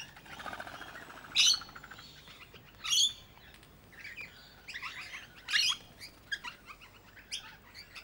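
Noisy miners calling: a buzzy rattle in the first two seconds, then a run of short, sharp, high calls, the loudest about a second and a half apart.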